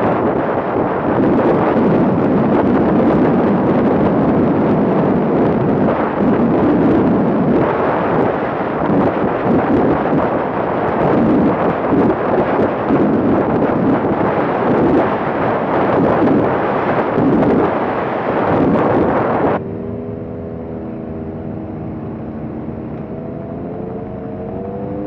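ATV ridden at road speed, wind rushing and buffeting over the microphone on top of the engine noise. About twenty seconds in it cuts abruptly to a quieter, steady engine note whose pitch climbs near the end.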